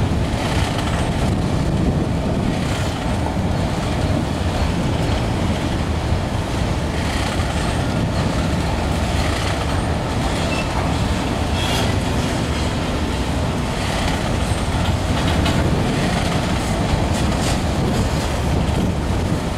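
Freight train of autorack cars rolling past at slowing speed: a steady rumble of steel wheels on rail, broken by irregular clicks and clanks as the wheels pass over rail joints.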